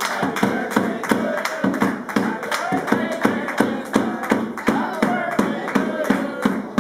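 A group singing a birthday song together over steady rhythmic hand clapping, about three claps a second.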